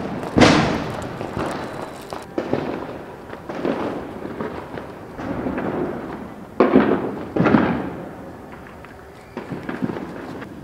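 Firecrackers going off outdoors: several separate sharp bangs, each trailing off in an echo, the loudest about half a second in.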